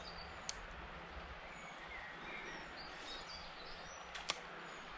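Steady outdoor hiss of river water with small birds chirping now and then, and two short sharp clicks, a faint one about half a second in and a louder one near the end.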